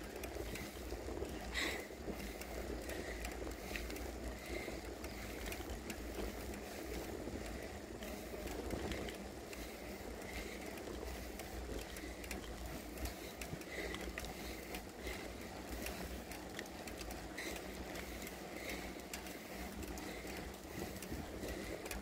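A bicycle rolling along an asphalt road: a steady rush of wind on the microphone with tyre noise.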